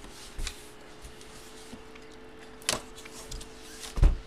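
Cardboard and paper packaging of a large photo being handled: a few separate knocks and rustles, the loudest near the end, over a faint steady hum.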